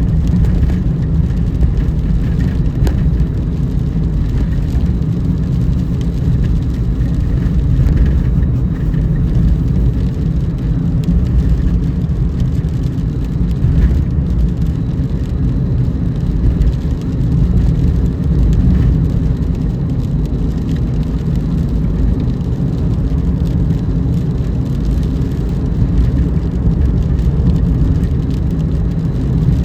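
Car driving on rain-wet roads: a steady low rumble of engine and tyre noise.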